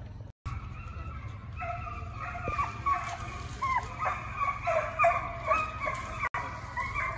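A pack of foxhounds baying on a running trail, many voices overlapping and building from about a second and a half in, over a steady low rumble.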